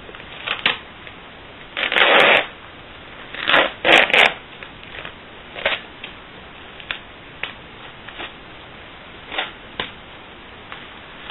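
Cardboard shipping box and its packing being handled and opened by hand: irregular bursts of rustling and scraping, loudest about two and four seconds in, with scattered light clicks and taps.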